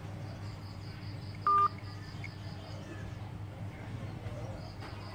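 A single short electronic beep from a Vivo Y53 smartphone on speakerphone, about one and a half seconds in, as its emergency call attempt ends; the call fails for lack of network service. A steady low hum and a faint, evenly pulsing high tone run beneath it.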